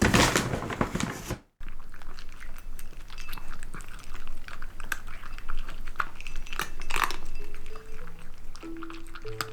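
A cat chewing and crunching its food, a rapid irregular run of crisp crunches with a brief break about one and a half seconds in.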